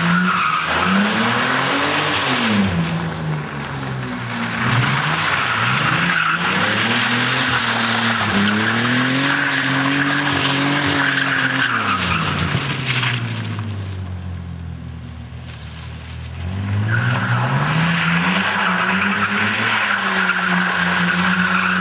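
Opel Omega sedan drifting: the engine revs up and down in long swells while the tyres squeal against the pavement. Roughly two-thirds of the way through the squeal stops and the engine falls quieter for a few seconds, then the revs climb and the tyres squeal again.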